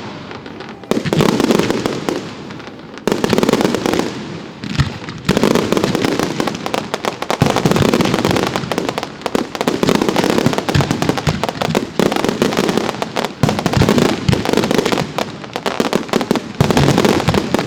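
Professional fireworks display going off without pause: dense crackling bursts, with a fresh loud volley about every two seconds.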